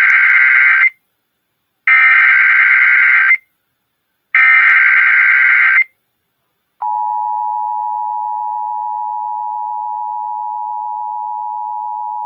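Emergency Alert System SAME header: the tail of one data burst, then two more full bursts of warbling data tones about a second apart. After a second of silence the steady two-tone EAS attention signal starts and holds, heralding a flash flood warning.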